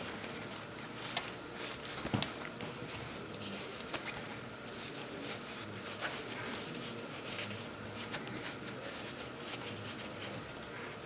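Hands stuffing a printed-fabric soft toy with fluffy white filler: soft rustling and scrunching of cloth and stuffing, with scattered light clicks and one sharper click about two seconds in.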